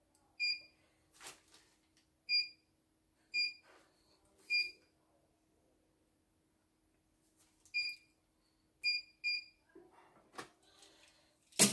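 Short electronic beeps, about seven of them at irregular intervals, from a CNY E900 computerised embroidery machine as it loads, over a faint steady hum that stops near the end. A sharp click comes right at the end.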